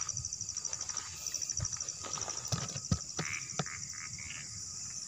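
Night forest ambience: insects keep up a steady, rapidly pulsing high-pitched trill, with a few short frog croaks and several sharp knocks about two to three and a half seconds in.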